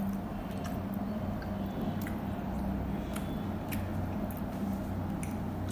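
Person chewing a mouthful of mutton biryani, with scattered faint clicks, over a steady low hum.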